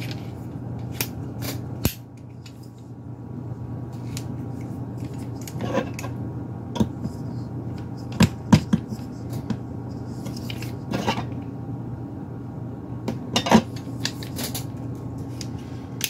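Phillips screwdriver working at the small screws of a PCI-E Wi-Fi card's metal bracket: scattered metallic clicks, taps and knocks, over a steady low hum.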